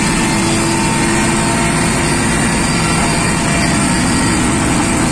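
Helicopter engines and rotor running steadily, heard loud from inside the cabin, with a steady high whine above the low drone.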